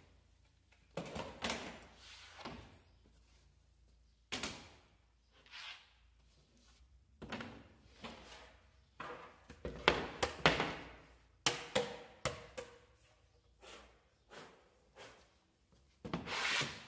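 Wooden panels, clamps and a drilling jig being handled on a wooden workbench: scattered knocks, scrapes and thumps, the loudest about ten seconds in, with a longer scrape of a panel sliding near the end.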